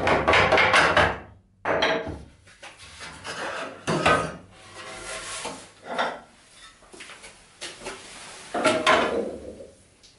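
Wood knocking and clattering on a wooden workbench as hand tools and boards are handled and set down. The sound comes in irregular bursts, the longest and loudest at the start and another near the end.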